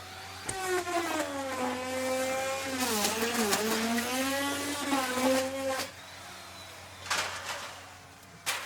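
Electric wood router running with a steady high whine, its pitch dipping briefly about three seconds in as the bit loads up in the wood. The whine stops about six seconds in, followed by two short bursts of noise near the end.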